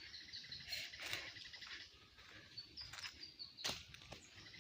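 A bird chirping faintly in quick runs of short, high repeated notes, with two sharp clicks, about one second in and near the end.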